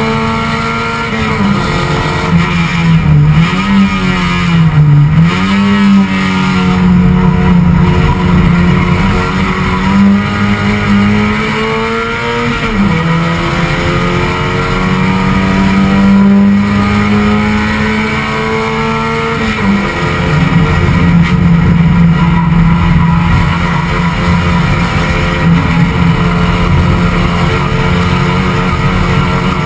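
Touring race car's engine running hard at high revs, heard from inside the stripped cabin, with a steady rush of road and wind noise. The engine note dips and climbs back several times as the car is driven through the corners.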